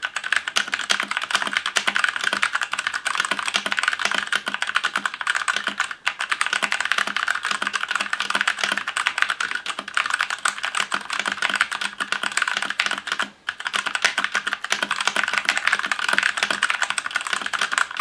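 Fast, continuous typing on the E-Element Z-88 mechanical keyboard with brown switches: a dense run of key strokes with no click, since these tactile switches are the quiet kind. The typing breaks off briefly twice, once about a third of the way in and again about two-thirds through.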